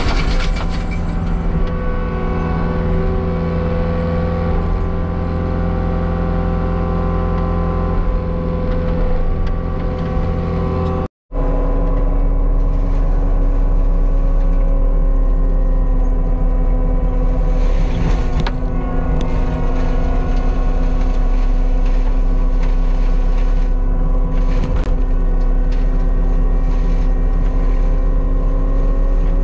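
Diesel engine of a heavy land-clearing machine running steadily under load. There is a brief cut about eleven seconds in, after which it runs on at a different, steadier pitch, with a couple of short knocks later on.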